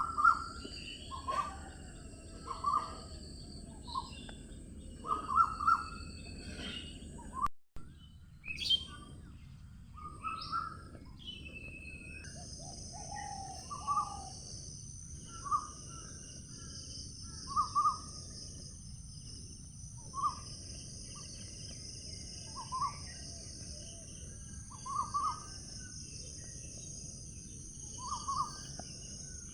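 Wild bird calling: short, clear notes repeated every second or two, over a steady high-pitched background drone. The sound drops out briefly about seven and a half seconds in.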